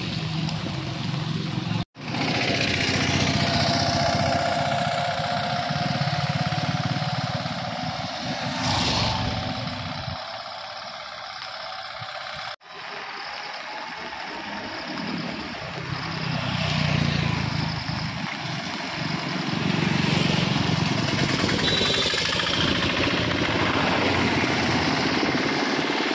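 Motor vehicles passing on a wet road, with engine sound that swells and fades and a steady hiss from tyres on the wet surface. The sound breaks off abruptly twice, about two seconds in and again near the middle.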